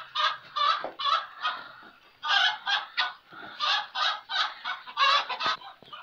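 Farmyard fowl calling in a fast run of short, harsh calls, about four a second, with a brief pause about two seconds in.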